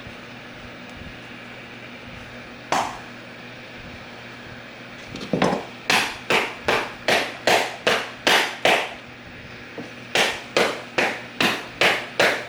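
A mallet striking on the bench: a single blow, then two runs of quick, even blows about two and a half a second, each with a short decay.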